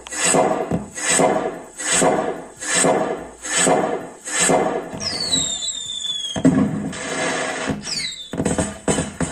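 Firecracker sound effects from a pixel-LED cracker tree's sound data: a run of rhythmic rushing whooshes about one a second, then high falling whistles and a burst, with more falling whistles near the end.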